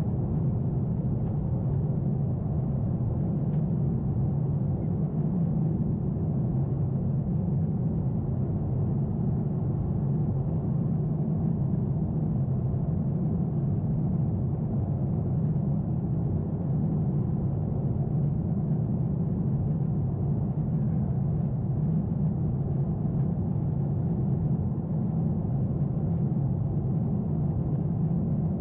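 Steady in-flight cabin noise of a Boeing 747-8 airliner: a constant, even, low drone of engines and airflow heard from a window seat, with no change in level.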